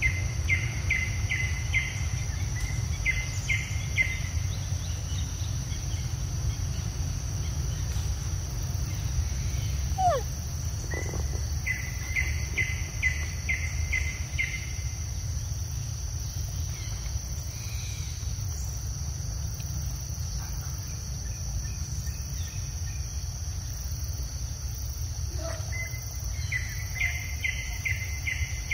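Outdoor insect chorus: a steady high-pitched insect drone over a low rumble, with four bouts of short chirps repeated about three a second and a couple of brief falling whistles.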